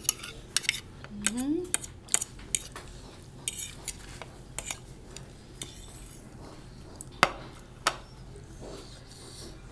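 Metal forks clinking and scraping on ceramic plates while noodles are twirled and picked up: a string of sharp clicks and short scrapes, the sharpest about seven seconds in. A brief rising hum sounds about a second and a half in.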